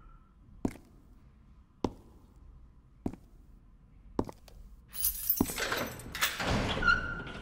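Four slow, evenly spaced footsteps on a hard floor, then, about five seconds in, a longer metallic clatter and rattle with several knocks as a cell door is unlocked and opened.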